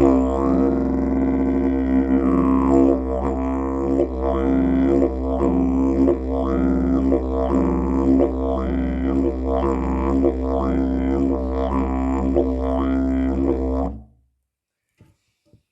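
White-cherry didgeridoo played as a continuous low drone, its tone opening and closing in a regular wah-like pattern about once every second or two. It stops abruptly near the end.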